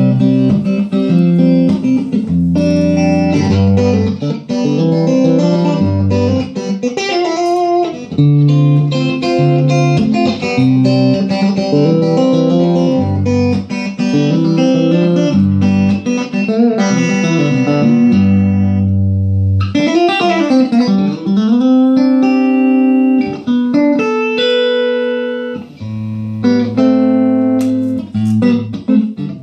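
Electric guitar played through a 6V6-powered 1x12 tube combo amplifier with the tone and gain turned up for a driven sound: runs of single notes and chords with string bends.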